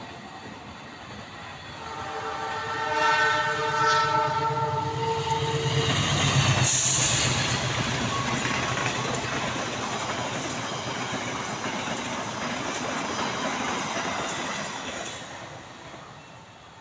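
Indonesian diesel-electric locomotive sounding its horn, the semboyan 35 signal, a chord of several tones held for about four seconds. The train then passes close by, engine and wheels rumbling on the rails, with a loud rush as it goes past, then fades away near the end.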